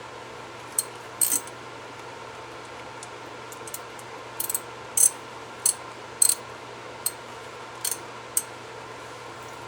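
Light metallic clinks and clicks of hand tools and brake hardware being handled during front brake caliper removal. About a dozen come at irregular intervals, some in quick pairs, over a steady low hum.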